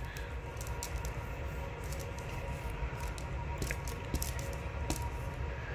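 Glue stick rubbed across paper: a soft scratchy squish with scattered faint ticks, over a steady low hum.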